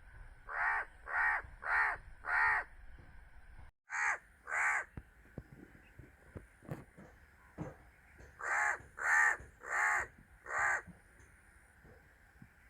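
A crow cawing in three series: four caws about two-thirds of a second apart, two more about four seconds in, then another four from about eight and a half seconds.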